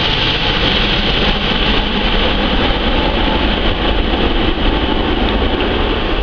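Airbus A330 airliner's jet engines heard as it flies low overhead on final approach: a loud, steady jet noise with a high whine early on, giving way to a deep rumble as it passes.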